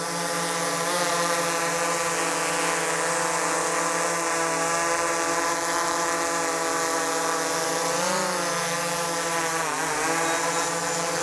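DJI Air 3 quadcopter's propellers whining steadily at close range as the drone hovers in to be landed on a hand. The pitch wavers briefly twice, about two thirds of the way through and again near the end.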